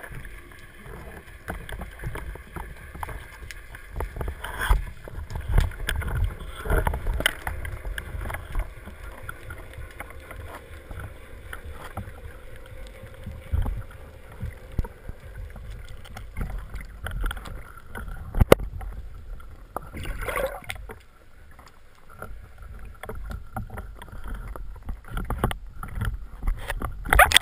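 Underwater sound picked up by a GoPro in its waterproof housing: a steady low rumble of water with scattered clicks and knocks as the diver moves, growing louder near the end.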